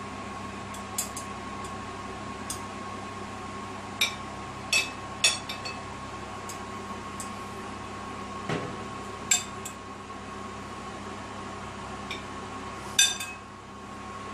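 A metal serving utensil clinking against a ribbed glass dish and a plate as pieces of braised chicken are lifted out: several sharp clinks, the loudest near the end, and one dull knock about halfway. A steady electrical hum runs underneath.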